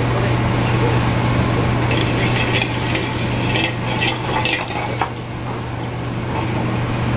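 Sliced Brussels sprouts sizzling in a sauté pan over a gas burner, with a few short metal clatters midway as the pan is tossed, over a steady low hum.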